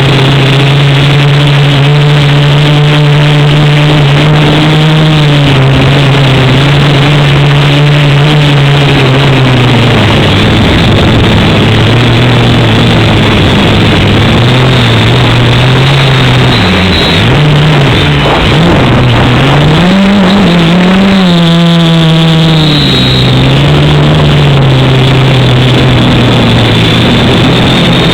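Quadcopter's electric motors and propellers running in flight: a loud, steady buzzing hum whose pitch wavers, dips and then climbs sharply about two-thirds of the way through as the throttle changes, before settling back.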